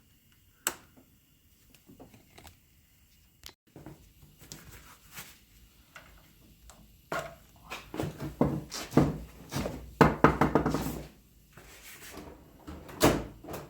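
Knocks, clicks and clattering from hard objects being handled. It is mostly sparse at first, then busier with a run of clatter a little past halfway, and ends with one sharp knock near the end.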